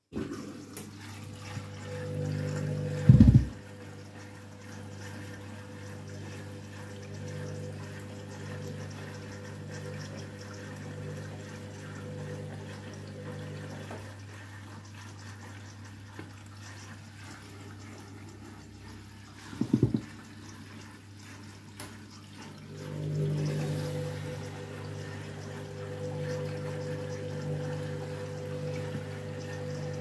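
Candy front-loading washing machine filling with water for its rinse: water running into the drum over a steady low hum. Two loud thumps come about three seconds in and again near twenty seconds.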